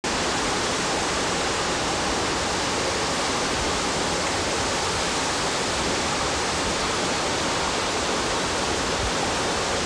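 Waterfall: falling water rushing steadily and evenly.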